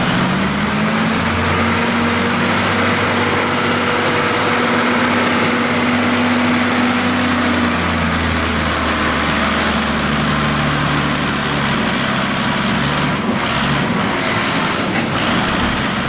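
Diesel engine of an old articulated wheel loader running steadily under load while it works into a pile of wheat grain. The engine note rises at the start and changes pitch about halfway through.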